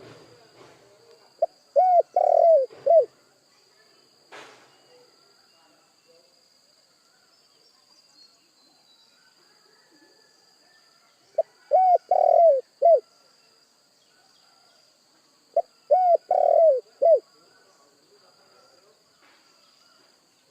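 Spotted dove cooing: three phrases of four or five low, curved coo notes each, the second and third coming about ten and four seconds after the first. A faint steady high-pitched buzz runs underneath, with one sharp click between the first two phrases.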